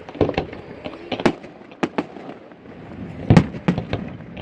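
Fireworks bursting: a quick, irregular series of sharp bangs and crackles, with the loudest boom about three seconds in.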